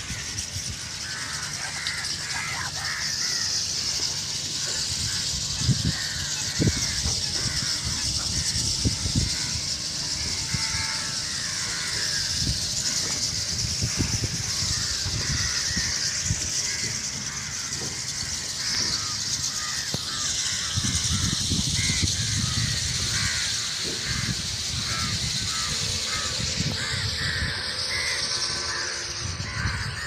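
A huge flock of starlings (mynas) in flight, a dense chatter of countless short overlapping chirps and calls, with an irregular low rumble underneath.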